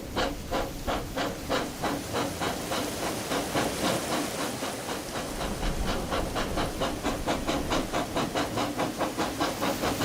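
Steam locomotive chuffing steadily, the puffs quickening from about three to about five a second as it picks up speed.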